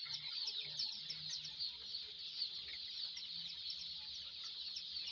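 Many chicks peeping at once, a continuous chorus of short, high chirps overlapping one another.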